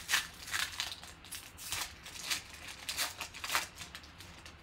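Foil wrapper of a Panini Select football card pack crinkling and rustling in a quick run of short bursts as the pack is opened and the cards are slid out.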